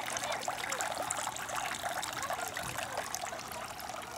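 Running water trickling and babbling steadily.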